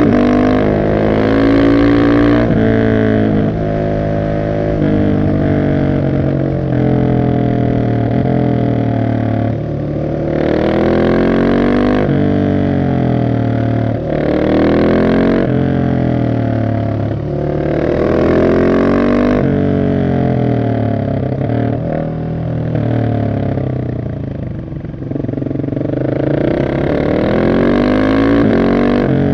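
Husqvarna 701 SM single-cylinder engine through an Arrow exhaust with the catalyst removed and the dB killer in, pulling hard and shifting repeatedly. The pitch rises through each gear and drops at every shift. It eases off to a lower, quieter note around three-quarters of the way through, then accelerates again.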